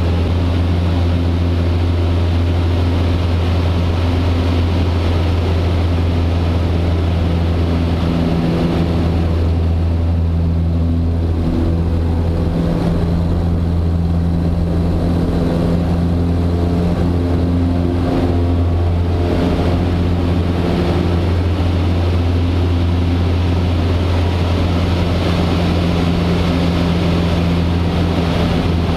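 The Super Decathlon's four-cylinder Lycoming engine and propeller droning steadily, heard inside the cockpit. In the middle the tone shifts slightly and the higher part of the sound dips briefly as the aircraft manoeuvres.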